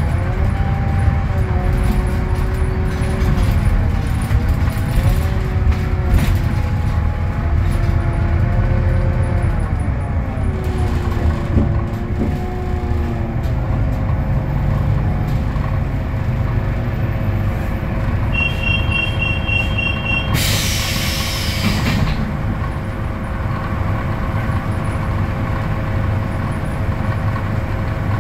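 Scania K320UA articulated bus's DC09 five-cylinder diesel and ZF Ecolife automatic gearbox running, their note rising and falling for the first dozen seconds, then holding steady. About 18 seconds in, a two-tone electronic beep repeats for about two seconds, followed by a short hiss of released compressed air, and a single beep comes near the end.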